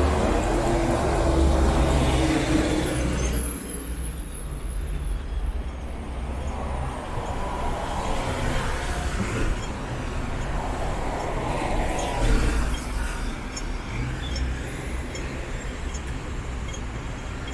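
Road traffic on a city street: vehicles passing one after another. The loudest passes in the first three seconds with a steady engine hum, then fades, and more vehicles swell past later.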